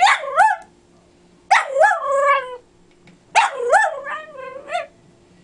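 Dachshund 'talking': three bouts of warbling, talk-like vocalizing, the pitch swooping up and down within each, the last bout the longest. The dog is demanding a toy that the other dog will not give up.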